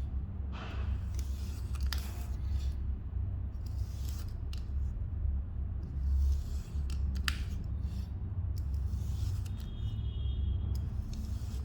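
Kinetic sand being cut: irregular crisp, crunchy cutting strokes, roughly one a second, over a steady low hum.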